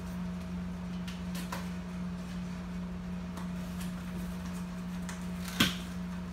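Knife cutting open a small cardboard box: faint scraping and ticks of the blade on tape and cardboard, then one sharp crackle of the flap tearing free about five and a half seconds in.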